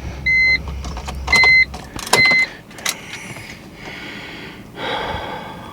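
A car's electronic warning chime beeps four times: short, high beeps about a second apart. A couple of clicks follow, then a brief rustle near the end.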